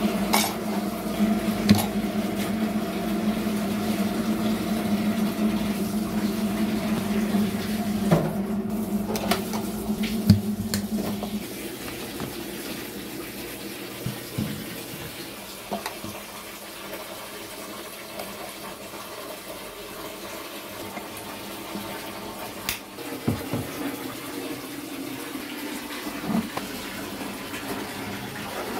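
Steady rushing, water-like noise with a hum in it that drops away about twelve seconds in, leaving a quieter hiss. Scattered sharp clicks and clinks of plastic container lids and a metal spoon against a glass.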